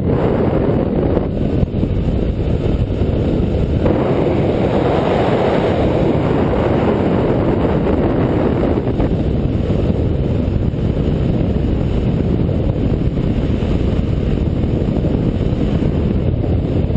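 Wind noise from the airflow rushing over the microphone of a camera mounted on a hang glider gliding down on its landing approach: a loud, steady rush that swells for several seconds starting about four seconds in.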